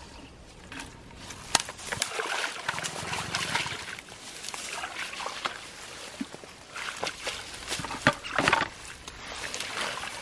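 Shallow pond water sloshing and splashing irregularly as a person wades and works his hands through dense floating weeds, with sharp splashes about a second and a half in and again around eight seconds in.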